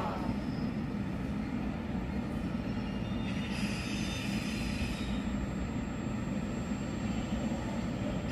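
Line 1 retrofitted resistor-control electric train standing at the platform, its equipment humming steadily, with a brief hiss from about three to five seconds in and a thin high whine after that.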